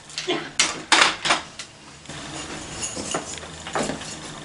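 Objects being handled and packed in bags: a cluster of sharp clattering and rustling strokes about a second in, and a few more near the end.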